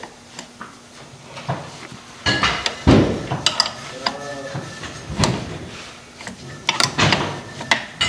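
Irregular metal clinks and knocks of a wrench on the bolts holding a tractor's muffler mount as they are worked loose. The loudest knock comes about three seconds in, with a few more spread through the rest.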